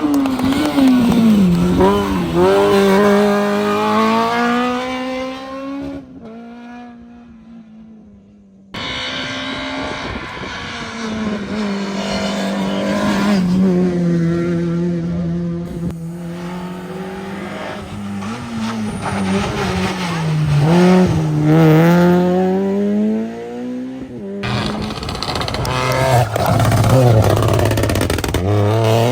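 Rally cars driven flat out, one after another, their engines climbing in pitch through the gears and dropping off on braking and lifting. A quieter, more distant stretch comes in the first third.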